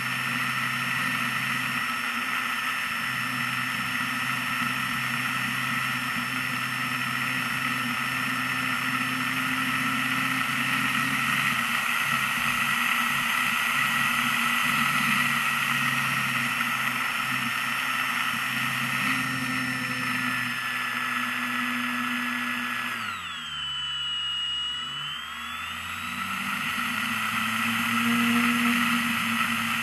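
Model airplane's nose motor and propeller running under power, a steady high whine over a rush of air noise. About 23 seconds in the throttle comes off: the whine falls in pitch and quietens, then climbs back up about two seconds later as power returns.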